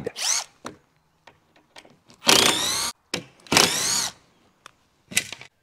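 Cordless drill-driver backing screws out of a wooden shipping crate. It gives a short whir at the start, two louder runs of about half a second each in the middle and a brief one near the end, with small clicks between.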